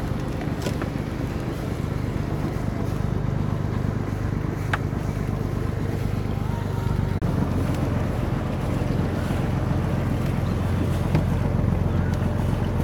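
Houseboat engine droning steadily as the boat moves, with water rushing past the hull and wind buffeting the microphone. The sound drops out for an instant about seven seconds in.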